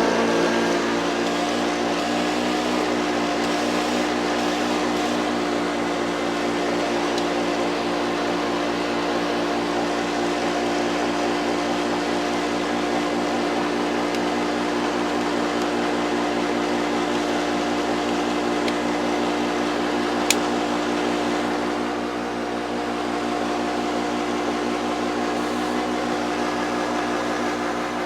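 Hoover U1104 upright vacuum cleaner's motor coming up to full speed just after being switched on, then running loud and steady with a constant whine. There is a single sharp click about twenty seconds in.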